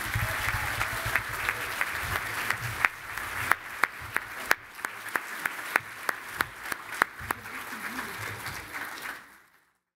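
Audience applauding: a dense burst of clapping that thins after about three seconds into scattered individual claps, then fades out just before the end.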